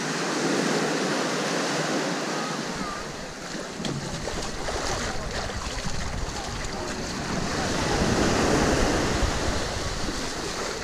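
Small waves washing onto a sandy beach, with wind rumbling on the microphone from about three seconds in.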